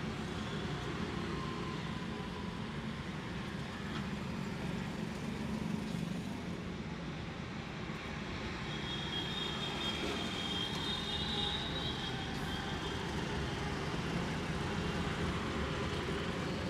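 Steady street traffic noise, with a faint high tone around the middle.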